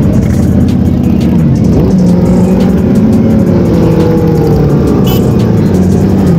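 Sport motorcycle engines revving and passing by one after another, with music underneath.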